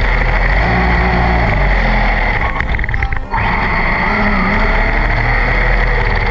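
Radio-controlled truck's electric motor running with a steady whine, with a brief drop about three seconds in.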